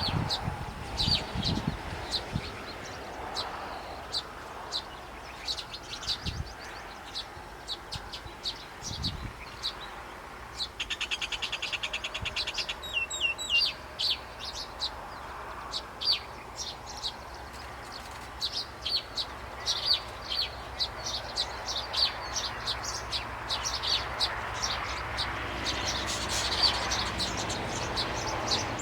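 Small birds chirping: repeated short, high chirps, with a rapid trill lasting about two seconds starting around eleven seconds in.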